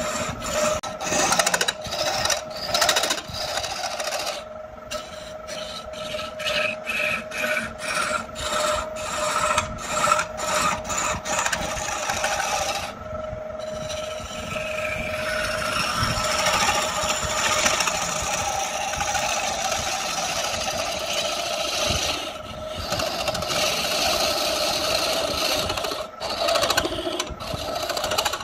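Wood being rasped or filed by hand in quick strokes, about two a second, giving way about halfway through to a longer continuous scraping, over a steady high hum.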